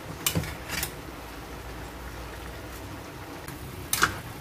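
A metal spoon knocking and scraping against the side of a cooking pot while stirring chicken and potato stew. There are a few light clinks in the first second and one sharp clink near the end.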